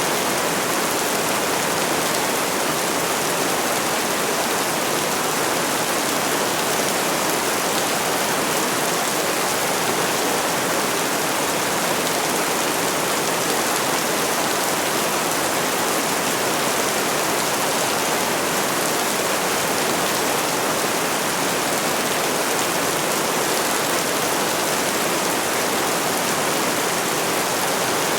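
Steady rainfall: an even, unbroken hiss of falling rain.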